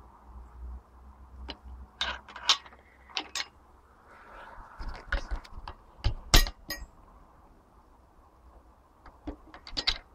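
Metal hand tools, a socket and wrench, clinking and knocking against a Mercury four-stroke outboard's powerhead in a string of short, irregular clinks as a spark plug is fitted and tightened.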